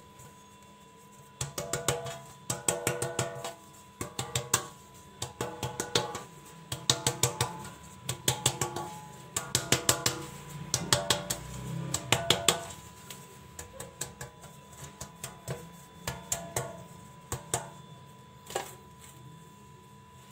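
Cake pan being tapped in quick runs of light knocks to spread a dusting of flour evenly over its oiled inside. The taps come in bursts for the first twelve seconds or so, then thin out to a few scattered knocks.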